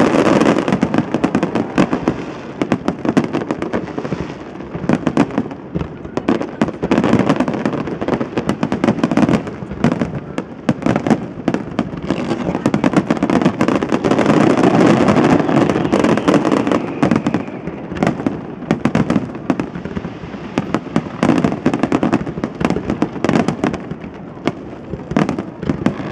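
Aerial fireworks shells bursting and crackling in a dense, rapid barrage of many reports a second, over a continuous rumbling wash that grows louder around the middle.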